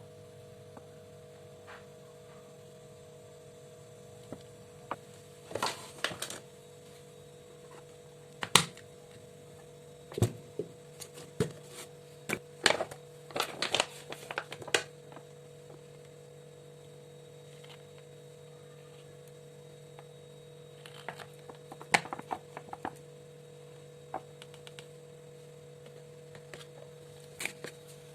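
Scattered light clicks and knocks of small objects being handled, in clusters, over a steady low hum.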